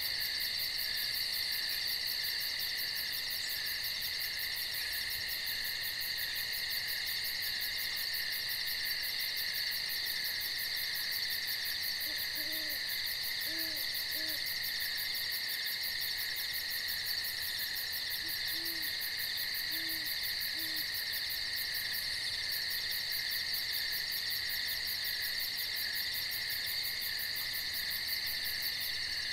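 Steady chorus of night insects, crickets and katydids, with a fast pulsing trill running throughout. An owl hoots twice, each time a short series of about three low hoots, about twelve seconds in and again some six seconds later.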